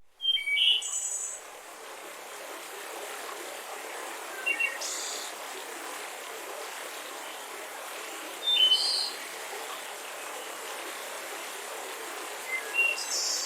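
Forest ambience of birds singing over a steady background hiss. Short clusters of chirps and whistles come about every four seconds: one near the start, then roughly at 4.5, 8.5 and 12.5 seconds.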